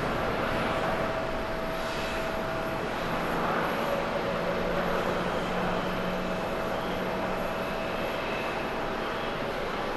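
Airbus A350-900's Rolls-Royce Trent XWB jet engines running as the airliner rolls out along the runway after touchdown: a steady rush of engine noise with a faint whining tone.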